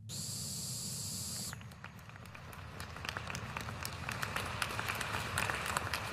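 A steady hiss for about a second and a half, then applause that starts as scattered claps and thickens into steady clapping.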